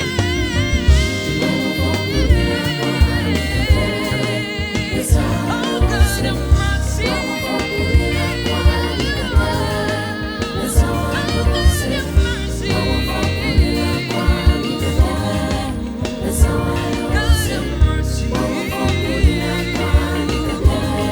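Gospel music: singing voices with vibrato over a band with a steady beat of drum hits.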